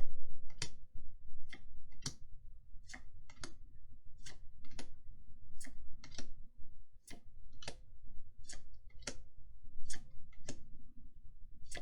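Trading cards being flicked one by one through a freshly opened Magic: The Gathering booster pack, a sharp click about twice a second.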